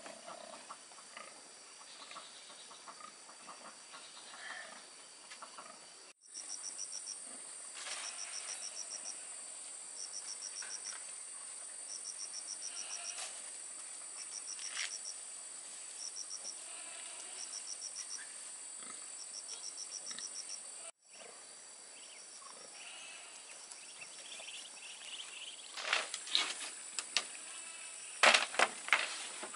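Insects calling: a steady high-pitched drone, with short trains of rapid chirps repeating every second or two through the middle. Loud crackling and snapping near the end.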